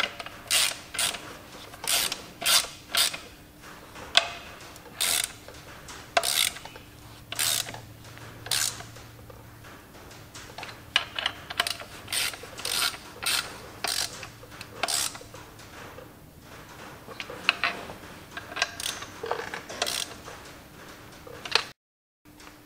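Hand socket ratchet clicking in short repeated strokes, in irregular runs, as the bolts holding a tractor's clutch assembly to the flywheel are run down.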